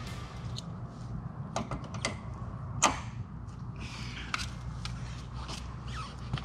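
Scattered sharp clicks and knocks as the aircraft tug's jumper cables and their clamps are handled, the loudest about three seconds in, over a steady low hum.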